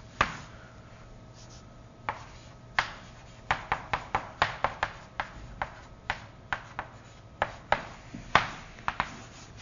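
Writing on a board: a run of sharp taps and strokes, sparse at first and coming quickly from about three and a half seconds in.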